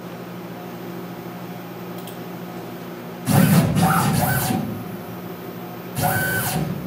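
Tormach PCNC 1100 mill's stepper-driven axes jogging the table between scan pictures. A steady low hum, then a whirring move with a whine about three seconds in that lasts over a second, and a shorter one near the end.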